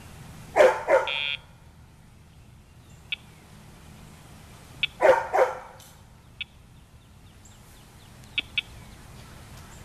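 A dog barking in two quick pairs, about four and a half seconds apart, with a few faint clicks in between.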